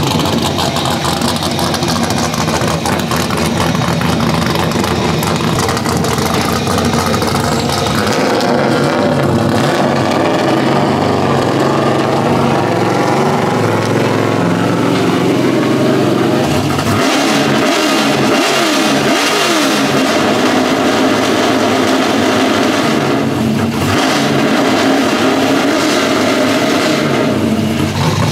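LS V8 engine in a Nissan 240SX (S13) drift car running as the car is driven slowly, with engine speed rising and falling a few times about two-thirds of the way through. The engine has just been started for the first time after fuel-system work and is warming up.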